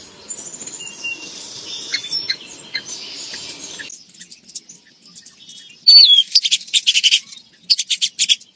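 Small songbirds chirping over a steady background noise for the first four seconds. After a cut, a loud bird call comes about six seconds in: a short falling note followed by a second of rapid chirps, then a run of sharp chips near the end.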